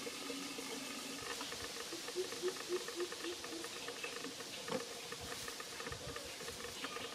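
Dry leaf litter rustling and crackling under a walking macaque, over a steady high hiss. A few seconds in comes a short run of low repeated notes, about four a second.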